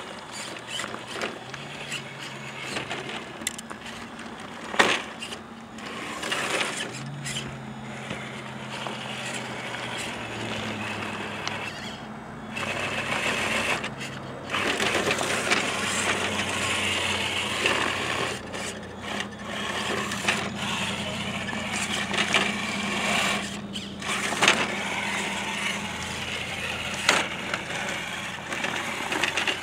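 Electric motors of radio-controlled scale rock-crawler trucks whining at low speed, the pitch stepping up and down with the throttle, while the tyres crunch and scrabble over rocks and gravel. A sharp knock about five seconds in.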